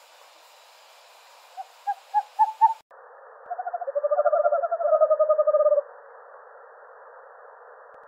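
Owl calling: a quick series of short hoots that rise in pitch and speed up about two seconds in. After an abrupt cut, long rapid trills follow.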